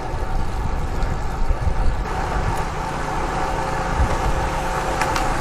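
Wind on the microphone and steady tyre and road noise from a road bike riding along, a constant rush with gusty low rumbles.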